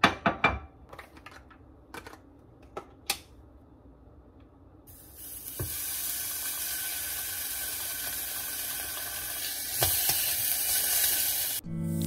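A few sharp clicks and knocks, then from about five seconds in a slice of canned luncheon meat sizzling in a hot non-stick saucepan with a steady hiss. The hiss cuts off just before the end.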